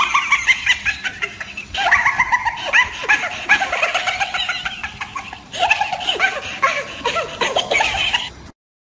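High-pitched laughing in three long bouts of quick repeated laughs, cut off abruptly near the end.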